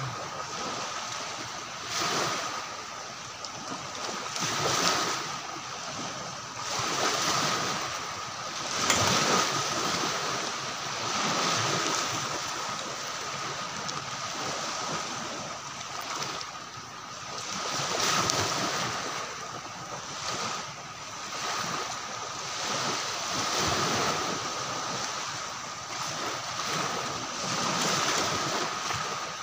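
Steady outdoor rushing noise that swells and fades every couple of seconds, under a constant thin high tone.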